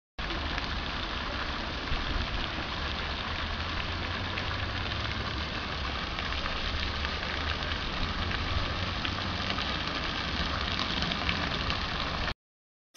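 Pond fountain jets splashing steadily onto the water, a continuous rain-like hiss with a low rumble underneath; it cuts off suddenly near the end.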